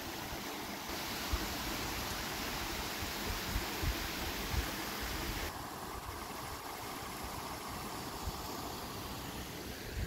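Shallow creek water running over rocks in small cascades, a steady rush that turns duller about halfway through, with a few faint low bumps on the microphone.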